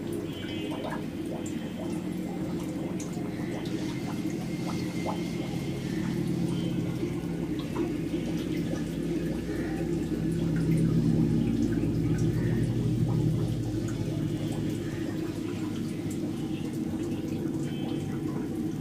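Water running steadily into a fish tank, with a low hum underneath that swells in the middle.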